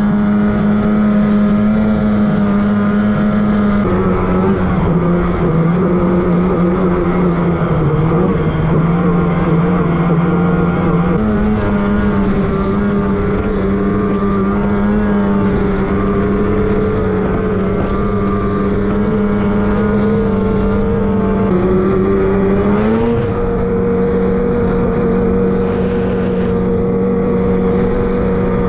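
Snowmobile engine running at high, fairly steady revs while riding. Its pitch drops a little about four seconds in, comes back up around eleven seconds, and steps higher again near the end.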